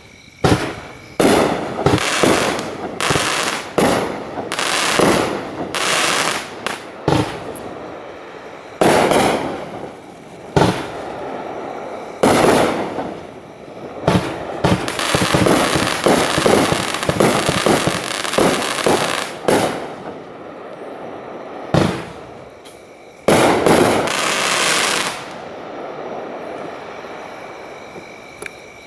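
A 350-gram consumer fireworks cake firing shot after shot: repeated launches and bursts with crackling. Dense volleys come through the middle, and a last loud burst comes near the end before the crackle dies away.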